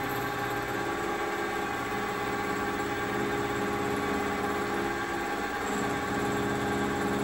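Sieg SX2.7 bench mill running at about 1,020 RPM, a steady hum made up of several tones, as its 3/4-inch end mill is fed into an aluminum bar and only just begins to cut.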